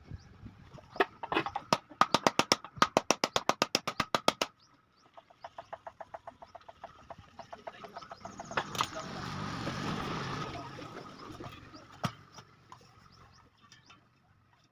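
Rapid, even mechanical clicking, about eight a second, slowing to about five a second. A rushing, scraping noise follows, then a single sharp click.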